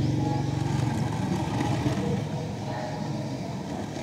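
An engine running steadily, loudest at the start and easing off after about two seconds.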